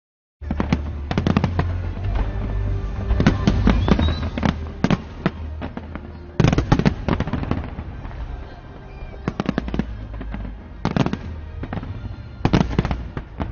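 Fireworks going off in rapid, overlapping volleys of bangs and crackles over a constant low rumble, with dense flurries and quieter gaps between them. Crowd voices react underneath.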